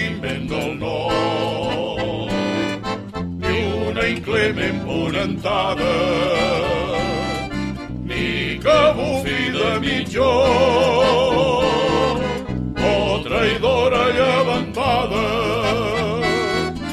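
Havanera sung by a male vocal group with accordion accompaniment, the voices singing with vibrato in phrases separated by short breaths.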